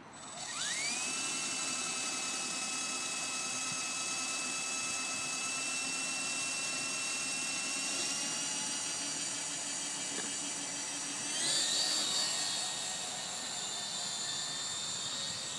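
MJX F45 RC helicopter's electric motor and rotors spinning up: a whine that rises quickly about half a second in and then holds steady. About eleven seconds in the pitch steps up higher as the throttle is raised and the helicopter lifts off.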